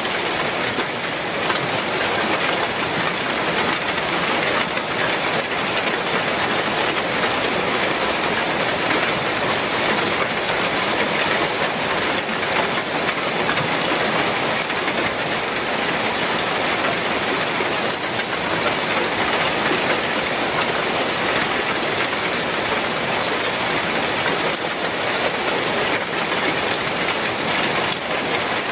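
Heavy rain falling steadily on a clay tile roof.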